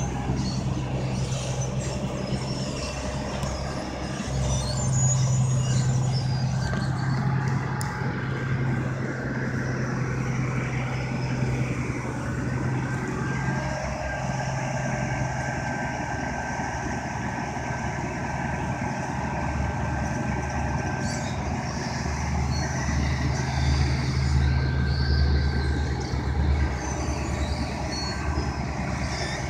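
Heavy diesel engine of a tracked road milling machine running steadily as the machine crawls along a lowboy trailer deck, with the hum swelling slightly at times.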